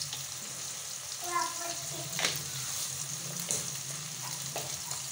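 Sliced onions and tomatoes sizzling steadily in hot oil in a wok, with a few sharp clicks of the spatula against the pan.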